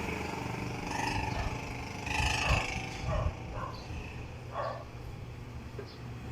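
Old Giant Mabuhay Star ceiling fan running with a steady low motor hum, with a few short, sharp sounds in the background, the loudest a little over two seconds in.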